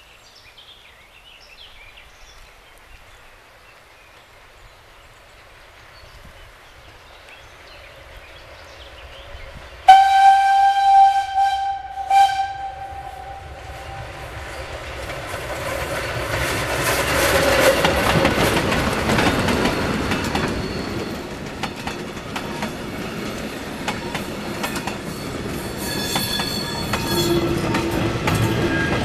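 Steam locomotive approaching, then sounding its whistle about ten seconds in with one long blast and a short second blast. It passes with a swelling rumble of exhaust and running gear, followed by wooden-bodied vintage passenger coaches rolling by with the clickety-clack of wheels over rail joints.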